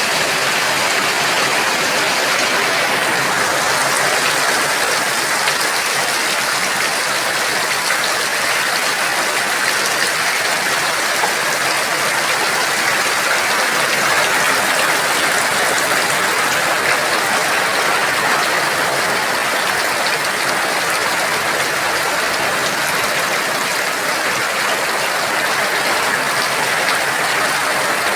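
Very heavy rain pouring down steadily: a dense, even hiss of drops that holds at the same strength throughout.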